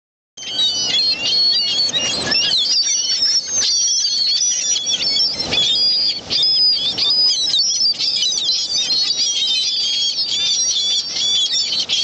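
A flock of gulls calling non-stop, many overlapping short, high, squeaky calls at once, over the wash of surf.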